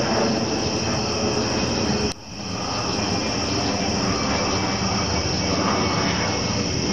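Low-flying unmanned aircraft, taken for an MQ-9 Reaper, passing almost overhead with a loud, steady engine drone. The drone dips sharply for a moment about two seconds in.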